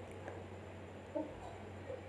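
Metal spatula scraping and lightly knocking against a pan while scrambling frying eggs, a few short knocks, the clearest about a second in, over faint sizzling and a steady low hum.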